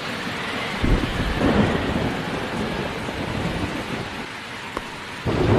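Heavy rain falling steadily, with a rolling rumble of thunder about a second in and another starting near the end.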